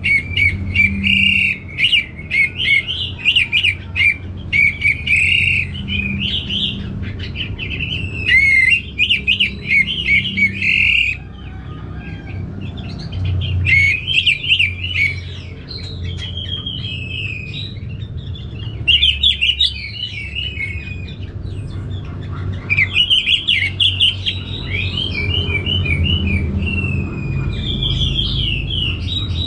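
Orange-headed thrush singing loudly in runs of rapid, varied high whistles and chatter. The song breaks off in several short pauses along the way.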